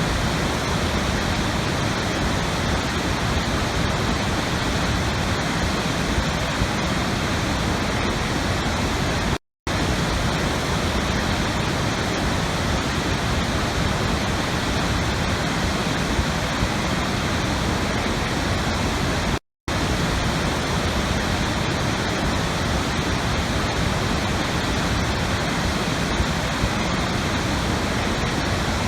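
Steady rushing water noise, like a waterfall, with no tune or rhythm. Twice, about ten seconds apart, it drops out to silence for a split second, as at the seams of a looped recording.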